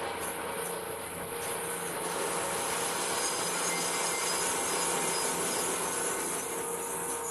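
Crankshaft grinding machine running steadily, its abrasive wheel rubbing against a steel main journal of a ZMZ-402 crankshaft as the journal is ground down toward repair size.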